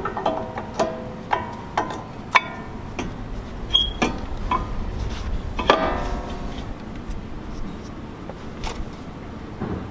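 Brake pads clinking against the steel caliper bracket and its clips as they are slid into place on a truck's front disc brake: a run of sharp metallic taps, each with a brief ring, mostly in the first six seconds.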